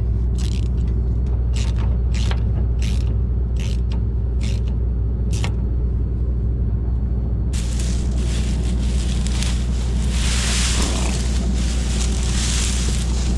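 Hand ratchet clicking in short strokes, roughly one or two a second, as the header's guard bolts are tightened, over the steady low drone of an engine running. About halfway through the clicks stop and a loud hiss comes in.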